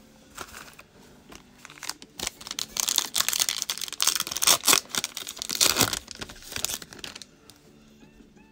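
Foil wrapper of a Panini Contenders football card pack being torn open and crinkled by hand: a dense run of crackling tears and crinkles starting about two seconds in and lasting about five seconds, then dying down to a few soft rustles as the cards come out.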